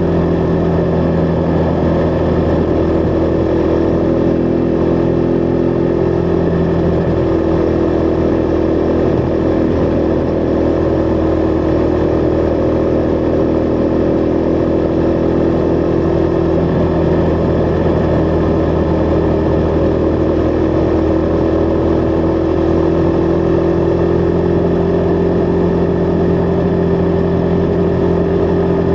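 Husqvarna Vitpilen 401's single-cylinder engine running steadily at cruise. Its pitch sags a little through the middle and climbs again near the end.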